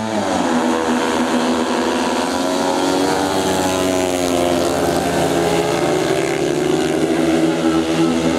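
Four speedway motorcycles' 500 cc single-cylinder methanol engines racing together, a layered engine note. The pitch rises as they leave the start line and then wavers as they are throttled through the bends.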